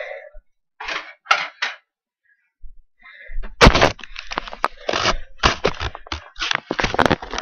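Handling noise: objects being rummaged and knocked about close to a handheld camera's microphone. A few soft rustles at first, then after a short pause a quick, dense run of sharp clicks and knocks.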